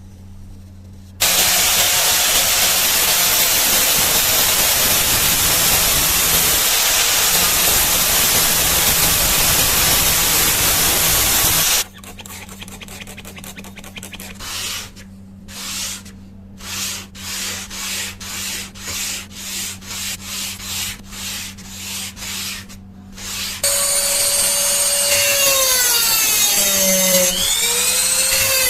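Sanding in a knife restoration: a power sander or grinder runs steadily for about ten seconds, then about a dozen back-and-forth rubbing strokes come roughly one a second, and near the end the power tool starts again, its pitch dipping and rising as it is pressed.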